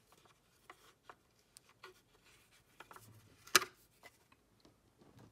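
Hand screwdriver undoing T25 Torx screws from engine-bay trim: light scraping and scattered ticks, with one sharp click about three and a half seconds in.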